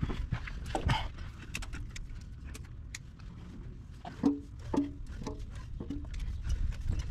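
Scattered light clicks and knocks of hands working at the old oil filter from under the truck. Four short vocal sounds between about four and six seconds in, the first the loudest.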